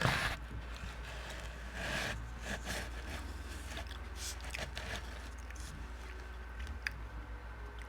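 A person eating, with chewing and scattered short wet mouth clicks and smacks, over a steady low hum.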